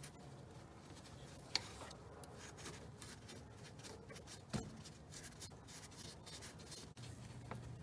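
Faint scraping and rubbing of hands and a tool working at a power steering hose clamp in a cramped engine bay. Two sharp clicks stand out, one about a second and a half in and a softer one a little past halfway.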